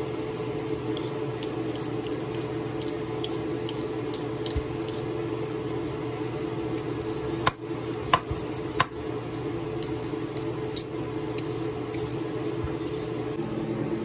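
Metal vegetable peeler scraping skin off a raw potato: a run of short, light scraping strokes with a few sharper clicks around the middle, over a steady low hum.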